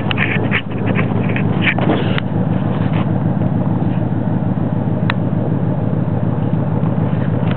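A pickup truck engine running steadily with a low rumble. A few short clicks sound in the first two seconds, and one more about five seconds in.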